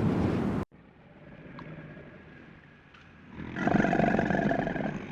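A noisy rumble cuts off abruptly just after the start. From about three and a half seconds in, a big cat roars: a loud, drawn-out call that tails off toward the end.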